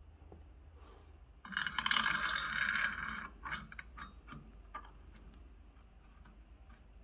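Steel press-tool parts clattering and scraping against a connecting rod and the threaded rod of a bushing press, a busy rattle of nearly two seconds, then a few light metal clicks.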